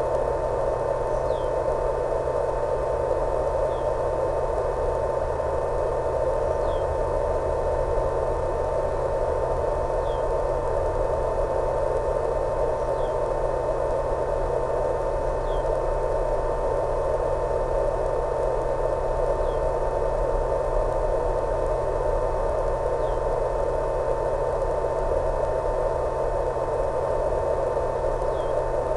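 Steady static hiss with a constant whine and low hum from an analog FPV video receiver's audio channel, with faint short chirps every few seconds.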